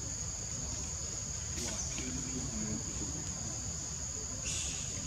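Steady high-pitched drone of insects in forest, with a brief rustle near the end.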